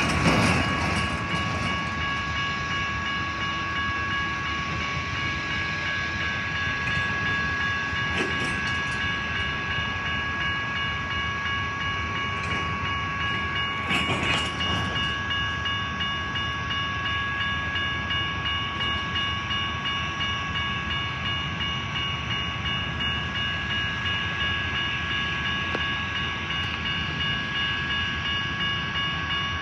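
Union Pacific train rolling past, its wheels clicking over the rail joints. A steady high ringing tone runs over it, with a brief louder moment about halfway through.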